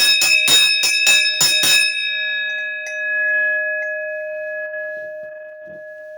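A bell struck about seven times in quick succession over two seconds, then left ringing. It holds a clear tone near C sharp 5, with higher overtones above it, and slowly fades.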